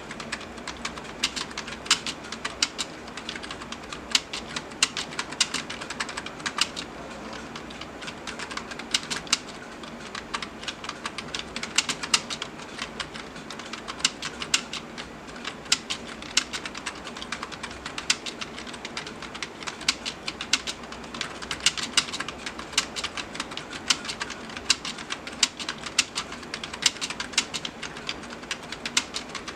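Computer keyboard typed on quickly and continuously: a fast, steady run of key clicks, several a second, with only brief pauses.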